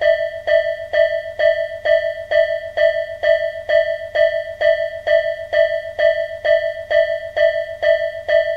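Japanese level-crossing alarm bell ringing, a single clear tone repeated evenly at about two and a half strikes a second.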